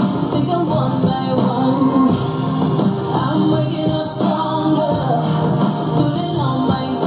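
Pop song with singing and guitar, played loudly through a home mini hi-fi's speakers.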